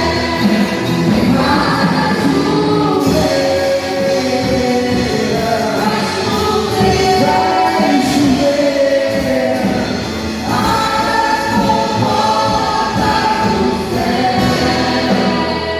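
Gospel choir singing, held sung notes over music.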